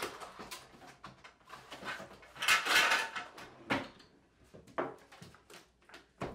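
Rummaging through a desk drawer: scattered knocks and clatter of objects being moved, with a louder scraping noise about two and a half seconds in that lasts about half a second, then a few single sharp knocks.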